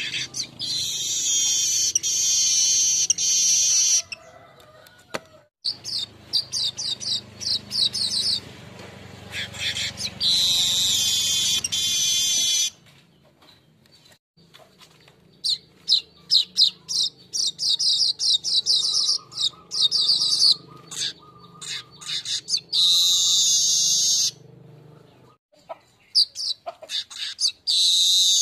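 Asian golden weaver singing: repeated bursts of rapid, high, buzzy chattering, each lasting a few seconds, with short pauses between them.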